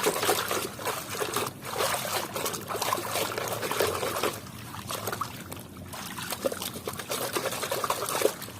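Water pouring and trickling over a muddy toy vehicle as it is washed, with uneven splashing.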